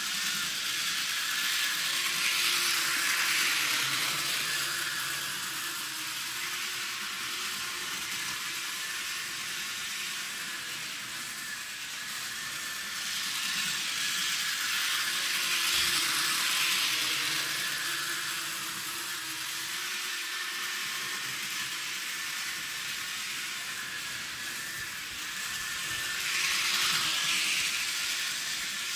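Bachmann HO-scale Thomas the Tank Engine model train running on its track, a steady hissing whir of motor and wheels that grows louder three times as the engine passes close by.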